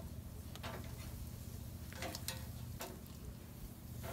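Metal tongs and spatula clicking and clinking against a steel mesh grill grate as a slab of pork ribs is set down, a few irregular sharp taps over a steady low hum.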